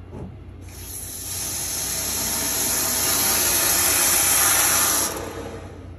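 Water rushing with a hiss through a hot-water supply valve as it is opened. It grows louder over a few seconds, then cuts off suddenly as the line fills and pressurizes.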